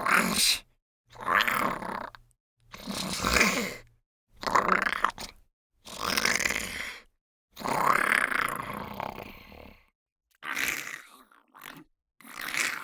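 Small-creature monster snarl sound effects: a string of short, breathy, gravelly snarls, each about a second long, with silent gaps between them. Around the middle comes one longer snarl that tails off, and after a pause a shorter set of snarls begins near the end.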